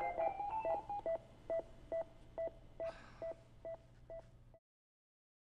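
Operating-theatre patient monitor beeping rapidly, a little over two beeps a second, with a second, higher alarm tone overlapping at first. The sound fades and cuts off to silence about four and a half seconds in.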